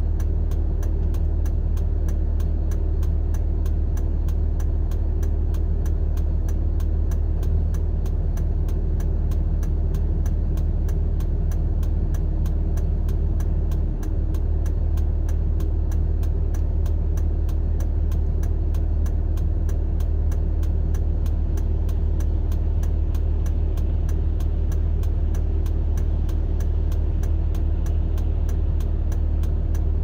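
A stopped vehicle's engine idling with a steady low hum, heard from inside the cab.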